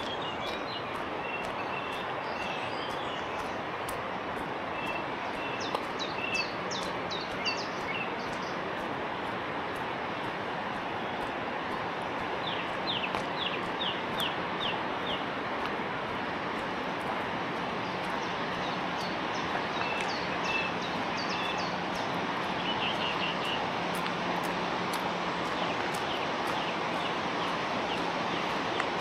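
Steady rush of the Iller river running high in flood, with songbirds singing over it in several short phrases of quick descending notes.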